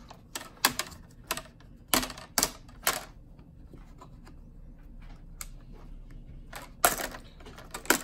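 Sharp plastic clicks and snaps as the plastic bezel around a Dell Precision M4600 laptop's keyboard is pried up: a run of clicks in the first three seconds, then a louder cluster near the end.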